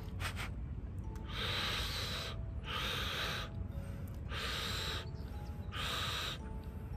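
Insects buzzing in repeated pulses, each about a second long, coming roughly every second and a half.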